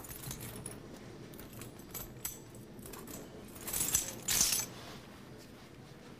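A bunch of keys and small loose items clinking and jangling on a floor, with the loudest jingle and rustle about four seconds in.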